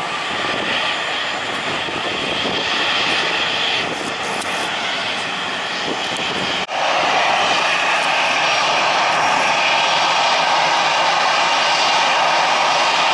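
Steady jet engine noise from a LATAM Airbus A320 rolling along the runway after landing. About two-thirds of the way through it cuts abruptly to a louder, steady jet engine noise from another twin-jet airliner taxiing toward the listener.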